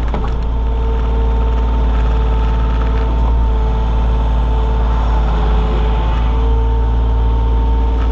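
Komatsu PC28 mini excavator's diesel engine running under load, with a steady hydraulic whine over the low engine rumble that wavers slightly in pitch now and then as the machine works.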